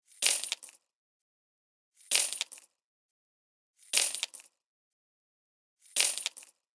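Handful of metal coins dropping and jingling, four times about every two seconds, each a short bright clatter that dies away within a second, the same clip repeated.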